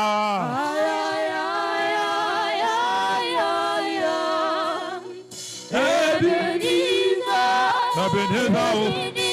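A man singing a slow worship chant without words, holding long notes that waver and glide, with a brief pause about five seconds in before the next phrase.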